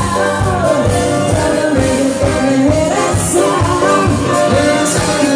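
Live band playing a pop song with a lead singer over a steady drum beat, loud and continuous.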